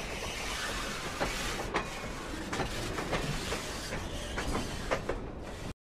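Train running on rails: a steady rumbling hiss with irregular sharp clicks from the wheels, cutting off suddenly near the end.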